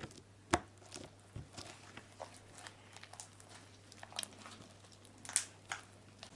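Homemade glue slime being squeezed and stretched in the hands, giving scattered short wet clicks and pops; the loudest come about half a second in and a little after five seconds.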